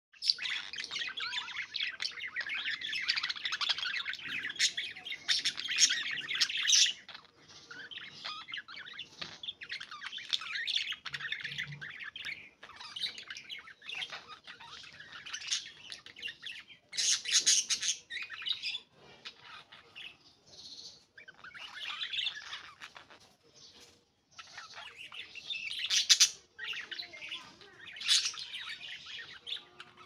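A group of budgerigars chattering and warbling: a dense run of fast chirps with short pauses. A few louder, sharper calls stand out about halfway through and near the end.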